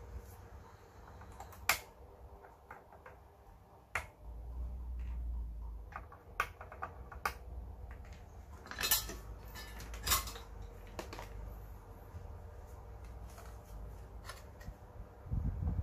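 Scattered sharp clicks and clinks, about seven, of pliers and loose parts being handled on the opened LCD TV's metal chassis and circuit board, the loudest two near the middle. A soft low rumble of handling runs for about a second and a half a few seconds in.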